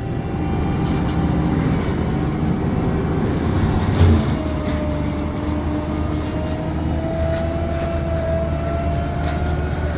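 Forestry mulcher running steadily as its cutter grinds through brush and small trees, with a thump about four seconds in and a whine that climbs slightly in pitch through the second half.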